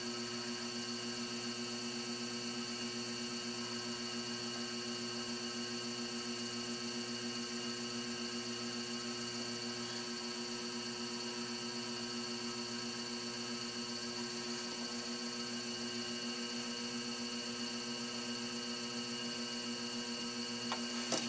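Electric potter's wheel running at a steady speed: an even motor hum and whine while the wheel head spins, with a faint click near the end.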